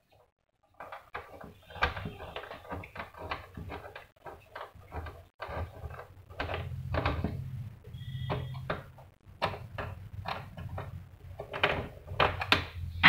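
Irregular plastic clicks, taps and knocks of printer parts being handled and fitted into a GP-1125T printer's housing, starting about a second in, over a low steady hum.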